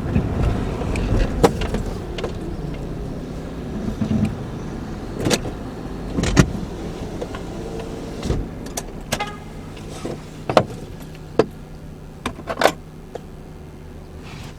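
Car cabin sounds: low engine and road rumble dying away as the car slows to a stop, then a steady low idle hum. Scattered sharp clicks and knocks run throughout.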